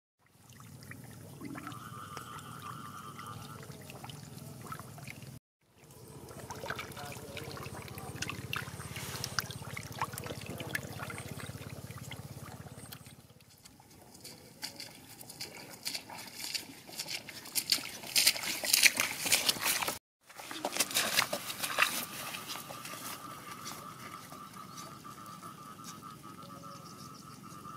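Catfish thrashing and splashing in shallow muddy water, in irregular sloshes and splashes that get louder and denser about two-thirds of the way through. The sound cuts out briefly twice, and a faint, steady, wavering high trill runs in the background near the start and through the last part.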